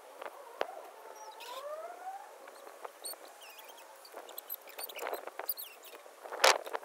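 Grass and weeds rustling and tearing as they are pulled up by hand, in short scratchy bursts, the loudest near the end. A faint rising tone sounds between one and two seconds in.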